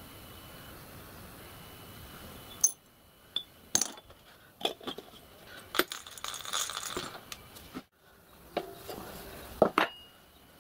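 Small metal injector parts clinking against a glass jar, a handful of sharp clinks, then a rasping stretch as the jar's screw lid is turned on. After a short break, a few sharp metallic clicks as the safety valves on a miniature steam locomotive are handled.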